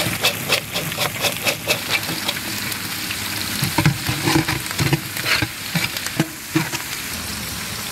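Garlic, ginger and green chillies sizzling in hot coconut oil as they are stirred. Stirring knocks come quickly, about three to four a second, for the first two seconds, then more irregularly.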